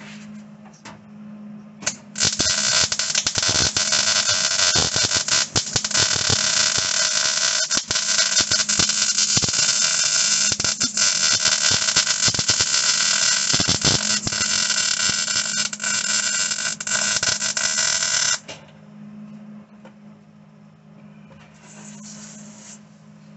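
Wire-feed (MIG) welder arc crackling steadily as a bead is run on a sheet-steel floor panel. It starts about two seconds in, runs for about sixteen seconds and cuts off sharply, then comes back for a brief second burst near the end. A low steady hum runs underneath.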